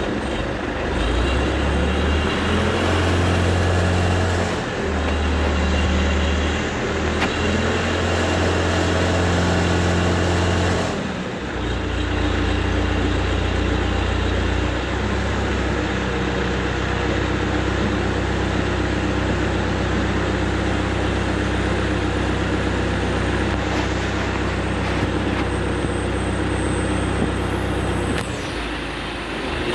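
Hydra crane's diesel engine running under load as it works the boom hydraulics to lower a transformer; the engine note shifts up and down several times in the first dozen seconds, then settles to a steady lower note.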